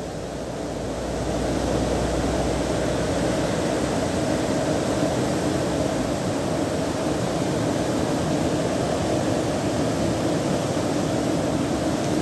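A creek in flood: muddy floodwater rushing steadily past a wooden footbridge choked with driftwood, a constant loud rush that swells slightly over the first second or two.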